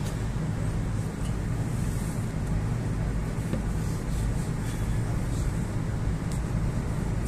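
Moscow 2.0 metro train running, heard from inside the car: a steady low rumble of wheels and motors with faint light ticks, as the train moves out past a station platform.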